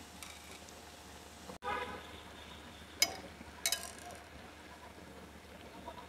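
Metal tongs clinking against a stainless steel frying pan: a sharp ringing clink about three seconds in and another shortly after, over a faint steady background.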